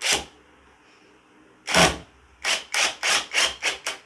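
Brushless cordless impact driver on its highest speed driving a 2-inch screw into wood in short bursts: one burst at the start, another near two seconds in, then a rapid string of bursts about five a second. At this top speed the driver bounces on the screw and risks the bit slipping.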